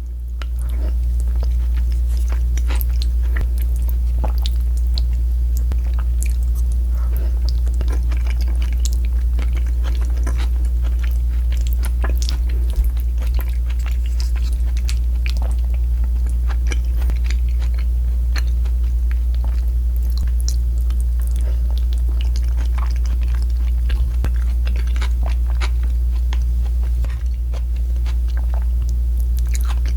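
Close-miked chewing with many short crisp crunches of fried pork, over a steady low hum.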